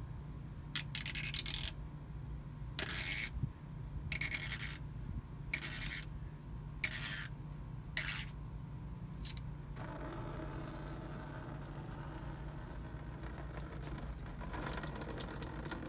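Short scraping rasps, about six in the first ten seconds, as the radiator drain petcock is worked loose by hand. About ten seconds in, a steady stream of coolant starts running and splashing into a plastic drain pan.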